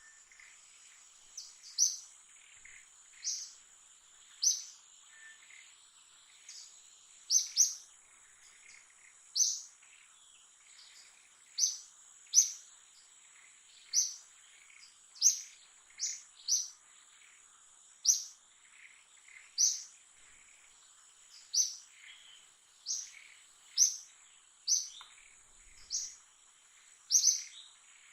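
A bird giving short, high chirps, about one a second, over the steady high drone of insects.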